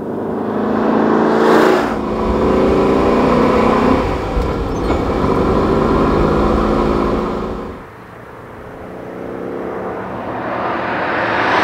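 Alfa Romeo Montreal's 2.6-litre V8 accelerating, its pitch rising over the first two seconds with a short dip, then pulling on strongly. It eases off about eight seconds in and swells again as the car comes close near the end.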